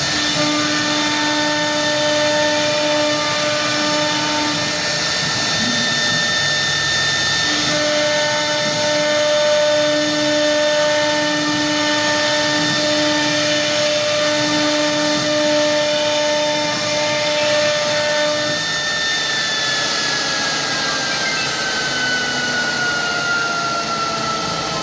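CNC router running: a steady high whine, with a lower hum that starts and stops in stretches of a few seconds. In the last few seconds the whine slowly falls in pitch.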